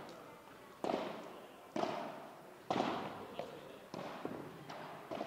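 A padel ball bounced on the court several times, about once a second, each sharp hit echoing off the glass walls. Two quicker, lighter hits come near the end.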